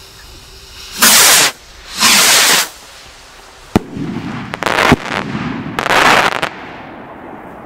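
Small fireworks rockets launching one after another: three loud hisses of about half a second each, with two sharp bangs in between as rockets burst.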